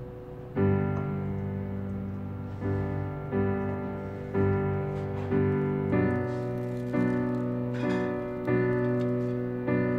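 Background piano music: sustained chords struck roughly once a second, the first about half a second in.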